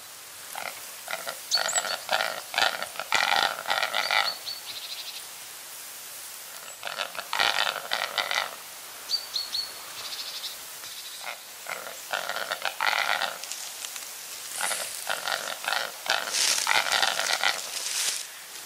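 Capercaillie × black grouse hybrid cock giving its display song: four bouts of rapid, rattling calls, each lasting one to four seconds, with quiet pauses between them.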